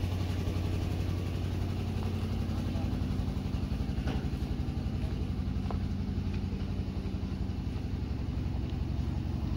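Diesel engine of a parked combine harvester idling, a steady low rhythmic chug.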